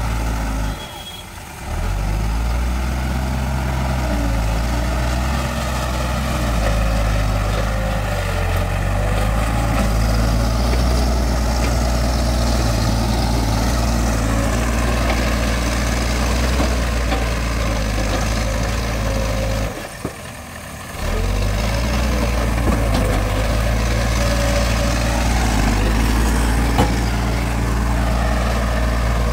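Case backhoe loader's diesel engine running steadily under load as the front bucket pushes and levels loose soil, its pitch shifting slightly as the throttle changes. The sound drops away briefly twice, about a second in and about two-thirds through.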